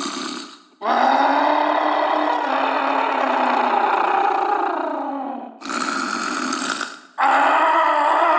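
A person snoring loudly: a long, pitched snore of about four and a half seconds with a slowly sagging pitch, then a short breathy hiss, and a second snore starting near the end.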